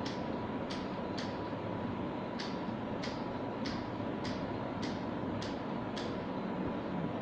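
About ten sharp, light ticks at a steady pace of roughly one every 0.6 seconds, with one longer gap, over a steady background hum.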